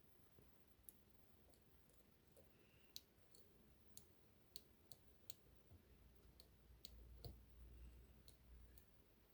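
Faint, irregular small clicks of a dimple lock pick working the pins and sliders inside a Magnum 2500 Atlantic euro cylinder lock, with a soft low rumble of handling in the second half.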